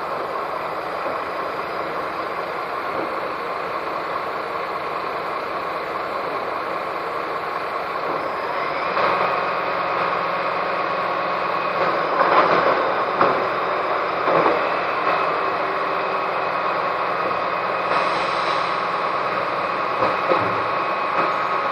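Mercedes-chassis Dennis Eagle Olympus bin lorry running steadily with a held whine. About eight seconds in it picks up, louder and higher, as the bin lift and compactor work, with a few knocks of bins on the lifter, and it settles again near the end.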